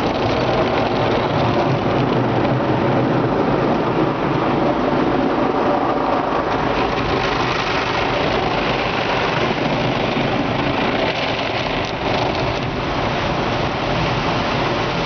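Automatic car wash running, heard from inside the car: a steady rush of water spray and wash machinery over the body and windshield.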